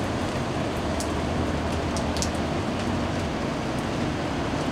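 Steady low drone of a big container barge passing close by, with an even wash of water and wind noise over it and a few faint high ticks.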